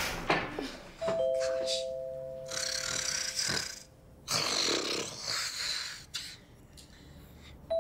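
A two-note doorbell chime rings about a second in and again near the end. Between the two chimes, a person snores twice.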